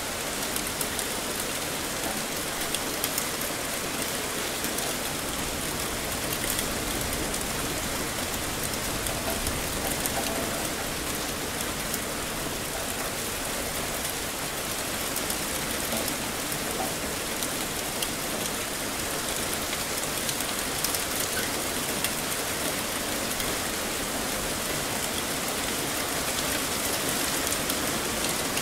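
Heavy rain falling steadily: a dense, even hiss with many small drop ticks scattered through it.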